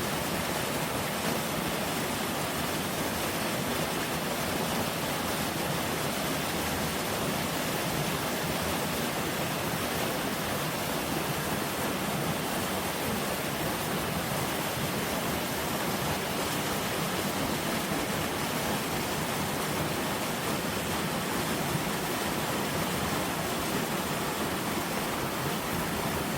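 Mountain valley stream rushing steadily over rocks, a constant even water noise.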